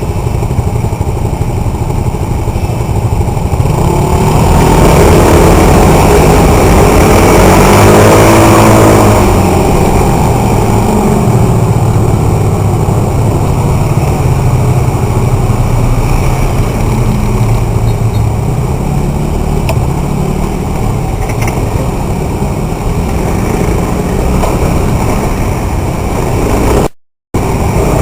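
Motorcycle engine running in city traffic, its pitch rising and falling as it speeds up and slows, loudest a few seconds in. The sound cuts out briefly near the end.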